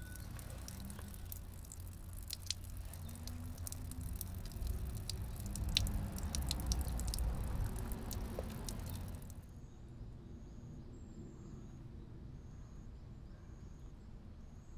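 Water trickling and dripping over wet rocks at a small spring, with many separate drops splashing. About two-thirds of the way through it cuts to a quieter open-air background with a faint, evenly repeated high chirp.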